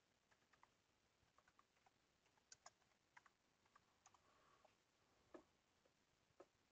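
Faint typing on a computer keyboard: a quick, irregular run of quiet key clicks, with a few sharper clicks in the second half.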